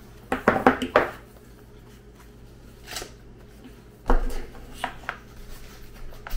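Handling sounds of a power cord being wrapped around a corded random-orbit palm sander: a quick run of cord clicks and rubs, then the sander's plastic body knocking on a stone countertop about four seconds in, with a few lighter clicks after.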